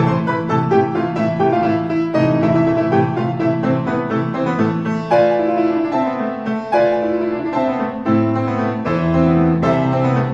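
Background music: piano playing a steady sequence of notes.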